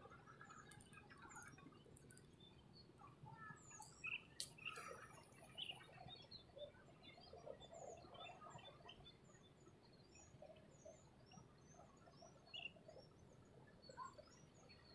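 Near silence with faint, scattered bird chirps and calls throughout, and one sharp click about four and a half seconds in.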